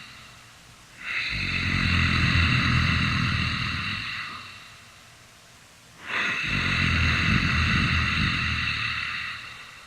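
Sound-effect heavy, rasping breathing of a monster, snore-like: two long drawn breaths, each starting suddenly with a deep rumble and hiss and slowly fading, about five seconds apart.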